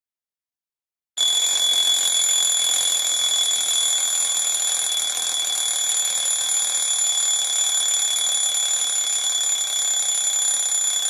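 Alarm clock ringing: one continuous, steady, high-pitched ring that starts about a second in and cuts off suddenly at the end.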